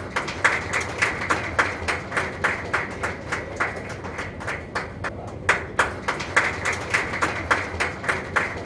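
An audience clapping together in a steady rhythm, about three claps a second.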